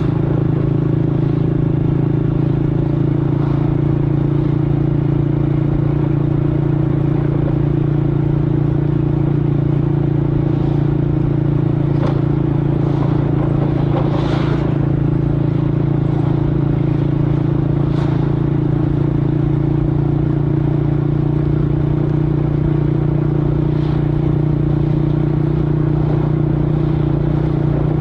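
Scooter engine running at a steady idle, an even low hum that holds one pitch throughout, with a few faint clicks over it.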